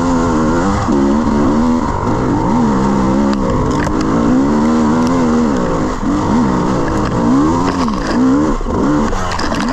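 Enduro dirt bike engine revving up and down over and over as the rider works the throttle climbing a slippery, rutted trail, the revs rising and dropping about once a second.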